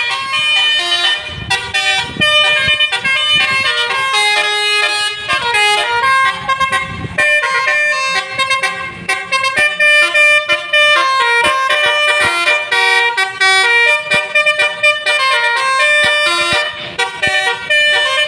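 A tour bus's Basuri musical air horn ("telolet") playing a loud tune, its notes stepping up and down almost without a break.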